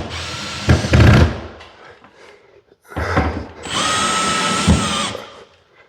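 A cordless drill driver runs in two bursts, driving temporary screws through a plasterboard patch into the ceiling. The first burst is a pair of short spins. The second is a steady whine lasting about a second and a half.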